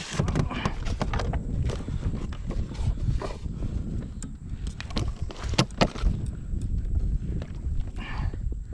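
Irregular sharp knocks and thumps against a plastic kayak as a redfish is handled and laid on a measuring board, with the loudest knocks about five to six seconds in.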